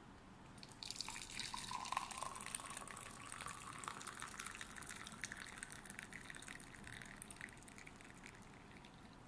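Hot brewed coffee pouring from a spoutless Toaks 750 titanium pot into a cup, a steady splashing stream that starts about a second in and tapers off near the end.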